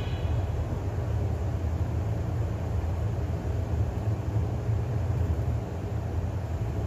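City bus driving along a street, heard from inside the cabin: a steady low drone of engine and road noise.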